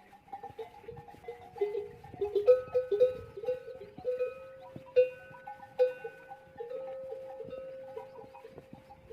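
Metal bells hung on camels clanking and ringing as the herd moves, several bells of different pitches jangling irregularly. A few hard strikes stand out in the middle, and one bell rings on for about two seconds near the end.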